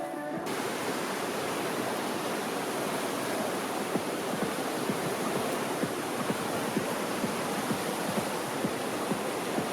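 Fast-flowing mountain stream or river rushing, a steady even roar of water.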